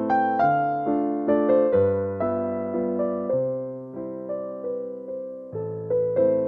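Background piano music: a gentle melody of single notes over low chords that change every second or so, each note struck and then fading.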